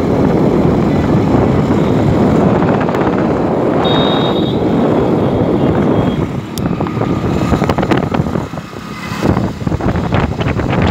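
Wind rushing over the microphone of a moving camera, mixed with road and vehicle noise. It is a heavy steady rush for about six seconds, then turns gusty and uneven with brief dips and crackles.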